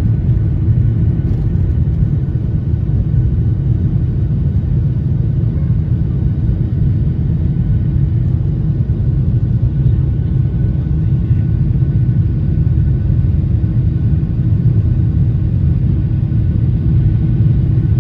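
Inside a passenger jet's cabin, the engines and airflow make a steady, deep rumble, with a faint thin whine held on one pitch above it.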